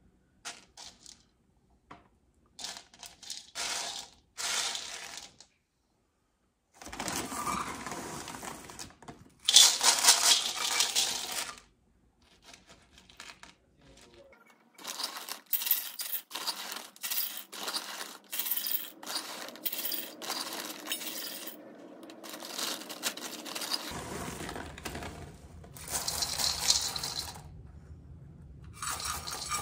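Dry black beans poured from a stainless steel measuring cup into a stainless steel mixing bowl, clattering and rattling. There are several pours with pauses between them, and a hand sifts through the beans in the bowl.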